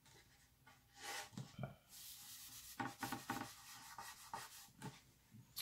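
A rag rubbed back and forth over the surface of a New Wave wooden artist's palette, wiping oil off the wood: a run of irregular scrubbing strokes that starts about a second in.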